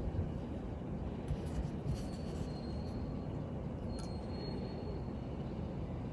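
Steady low background rumble, with a few faint light clicks from small tools being handled.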